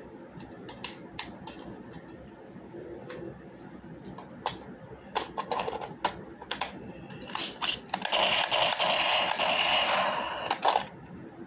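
Hard plastic clicks and rattles of a toy blaster being handled and worked by hand, scattered irregularly, then a louder stretch of dense scraping and clicking for about three seconds from around eight seconds in.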